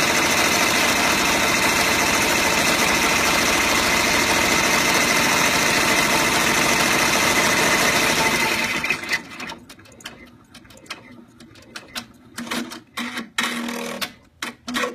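Multi-needle embroidery machine running at speed, sewing a placement stitch through a terry-cloth towel with a steady, rapid needle clatter. The placement stitch is done and the machine stops about eight and a half seconds in, followed by a few scattered clicks and knocks.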